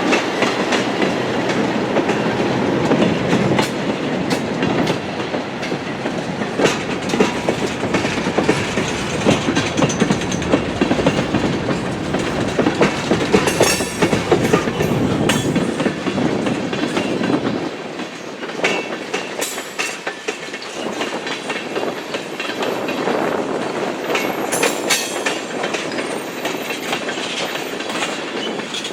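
Buffalo Southern Railroad train led by Alco RS-18u 1847 rolling past, a steady rumble with wheels clicking over rail joints. The deep rumble drops away about two-thirds of the way through, leaving lighter rolling noise and clicks.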